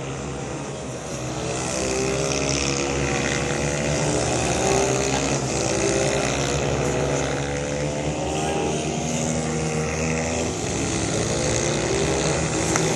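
Several racing minibikes' small engines revving around a track, more than one at a time, their pitch repeatedly rising and falling as they accelerate, shift and brake for corners. The sound grows louder about two seconds in as the bikes come closer.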